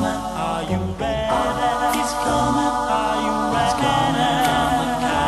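An a cappella vocal group singing held chord harmonies over a repeating low bass line, with no clear lyrics in this stretch.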